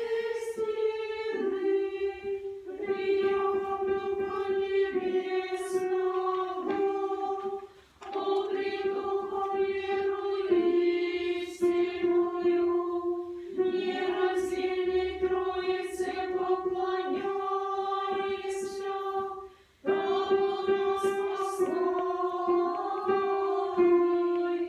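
A small choir singing Orthodox church chant a cappella, several voices holding long notes together in harmony. The singing comes in long phrases, with short pauses for breath about eight seconds in and about twenty seconds in.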